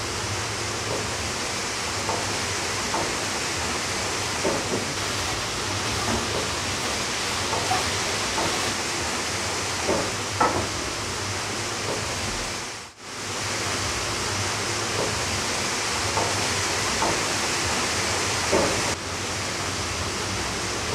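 Steady rush of running water, an even noise with no rhythm. It drops out for a moment about two-thirds of the way through.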